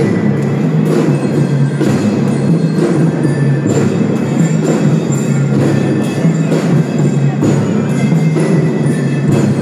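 Children's marching drum band playing: drum strokes with ringing metal bell-lyra notes on top.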